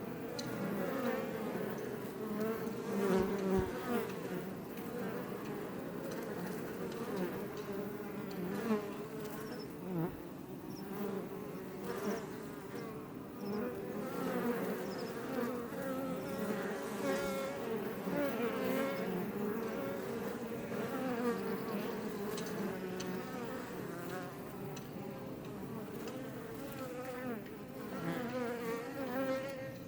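Swarm of Iberian honey bees buzzing in flight outside a Langstroth hive: many wingbeat hums overlap steadily, their pitches wavering up and down as individual bees pass close by.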